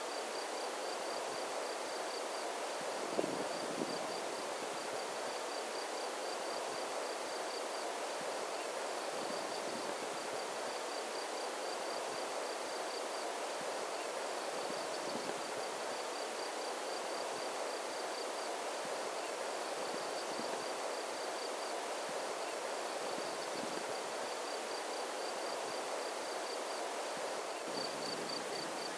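Insects, likely crickets, chirping in a fast, steady pulse over a constant rushing hiss of outdoor ambience.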